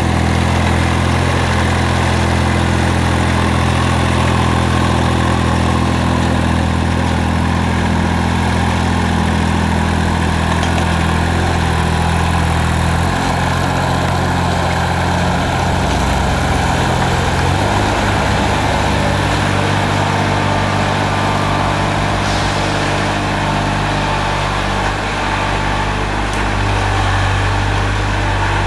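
Carraro 3800 HST compact tractor's engine running steadily while the tractor pulls a subsoiler through the ground. The engine note changes twice, about 13 and 17 seconds in.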